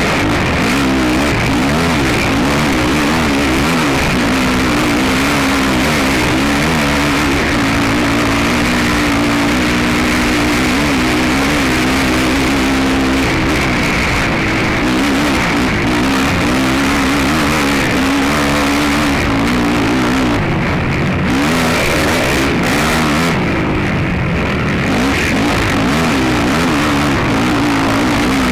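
Racing ATV engine heard on board, revving up and down continuously as the rider works the throttle and gears, with a couple of brief throttle lifts about two-thirds of the way through.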